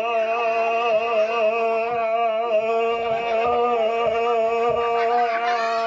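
A man's voice holding one long sung note at a steady pitch, wavering slightly, with fainter children's voices underneath.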